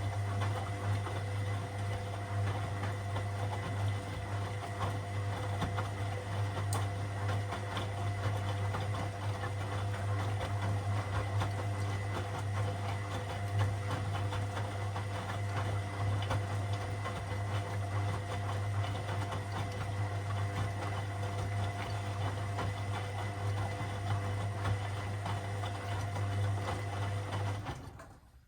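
Washing machine running with a steady low motor hum and a faint whine over a wash of noise, stopping abruptly near the end.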